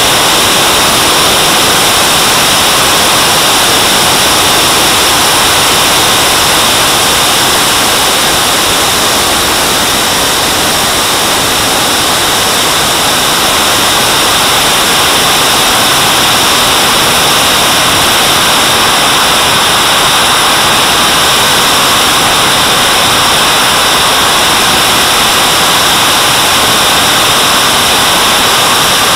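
JetCat model jet turbine running at speed in flight, heard close up from on board the airframe: a loud, steady roar mixed with airflow rush, with a high turbine whine running through it.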